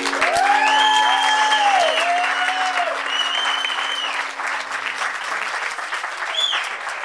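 Audience clapping and cheering, with whoops rising and falling over the clapping, as an acoustic song ends. The last acoustic guitar chord rings on beneath the clapping and fades out after about four seconds.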